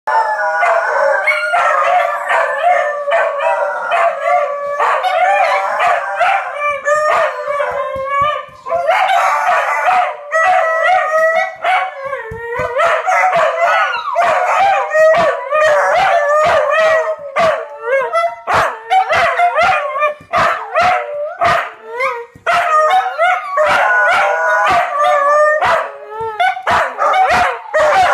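Four dogs howling together, their long, wavering howls overlapping at different pitches, with short barks breaking in, more often in the second half. The howling is set off by a fire truck's siren passing through the neighbourhood.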